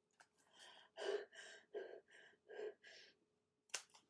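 A run of about six short, breathy gasps, roughly two a second, followed near the end by a single sharp click.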